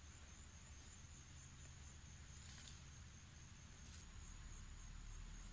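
Near silence: a faint, steady, high-pitched insect drone, with two soft clicks about two and a half and four seconds in.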